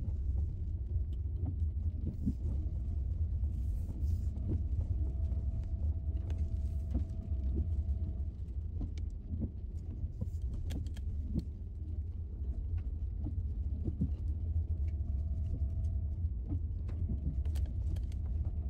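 Car driving on a gravel road: a steady low rumble of engine and tyres, with scattered clicks of loose stones and a faint whine that comes and goes.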